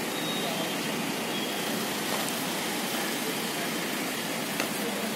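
Steady, even hiss of outdoor background noise, with a couple of faint clicks near the end.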